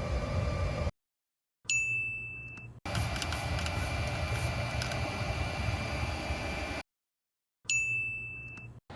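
Two identical bell-like dings, one about two seconds in and one near the end, each ringing out and fading over about a second, with a stretch of steady noise between them.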